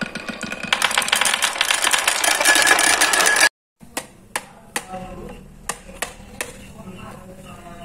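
Many small balls rolling and clattering in quick succession down a wavy wooden marble-run track, a dense rattle of clicks. After a sudden break, a few scattered light taps and clicks follow as gloved hands handle a box and a foil-wrapped item.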